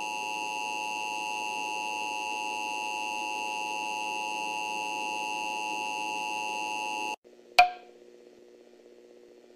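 Emergency Alert System attention signal: a steady two-tone electronic alert tone that cuts off abruptly about seven seconds in, followed by a sharp click and a faint low hum, the lead-in to the spoken emergency message.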